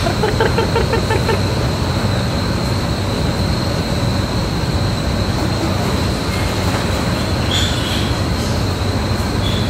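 Steady loud din of an indoor piglet barn, with a constant high whine and a low hum. Early on comes a quick run of short pitched grunts, and near the end a few brief high squeals from the weaned piglets.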